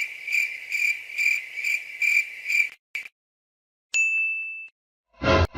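Cricket-chirping sound effect: a steady high-pitched chirp pulsing about twice a second, cutting off a little before three seconds in. About four seconds in comes a single short bright ding, and a loud new sound bursts in near the end.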